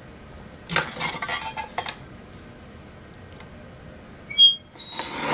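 Lever-arm guillotine paper cutter working: its metal blade arm rattles as it is swung up about a second in, gives one sharp ringing metallic clink about four seconds in, then the blade comes down with a swish as it shears a strip off a sheet of board near the end.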